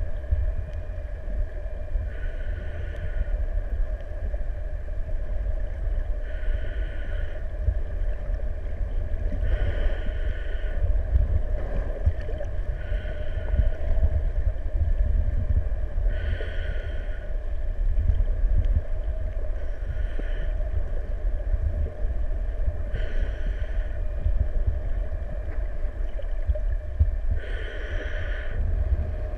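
Muffled underwater sound as heard by a camera housing: a steady low rumble of moving water, with a hissing breath about every three to four seconds, a snorkeller breathing through a snorkel.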